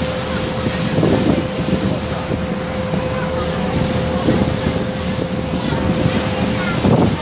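Boat engine running steadily under way, with a steady hum, water rushing past and wind buffeting the phone's microphone.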